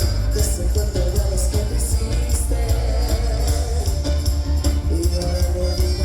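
Live band music with a heavy, steady bass, regular percussion hits and a held melody line on top.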